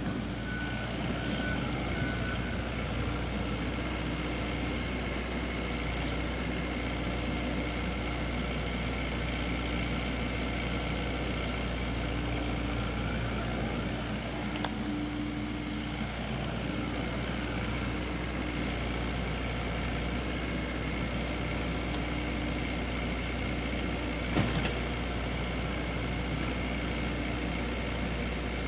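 Excavator's diesel engine running steadily, with a single sharp clank about 24 seconds in.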